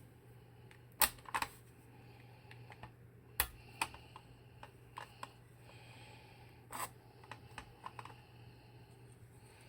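Keystrokes on an Alice-layout CNC aluminium mechanical keyboard with Princess Ultra switches: scattered, irregular clacks rather than steady typing, the loudest about a second in, near three and a half seconds and near seven seconds, over a low steady hum.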